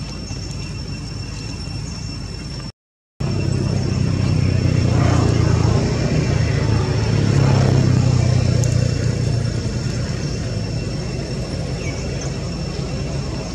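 Low engine rumble, as of a passing motor vehicle, swelling for a few seconds in the middle and easing off, with a thin steady high whine throughout. A brief cut to silence comes about three seconds in.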